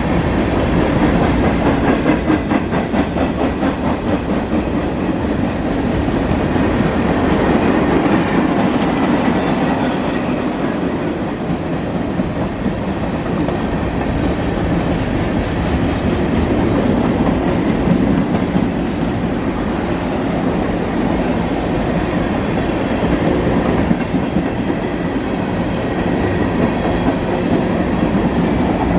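Freight train rolling past, its cars' wheels clattering steadily over the rails.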